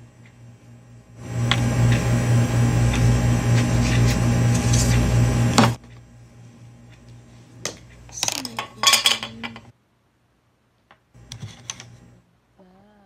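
Small hard objects clattering and rattling for about four seconds, ending in a sharp click, then a few short bursts of separate clicks and knocks.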